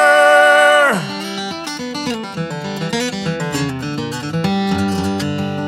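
Country music: a long held note ends about a second in, then guitar picking carries on.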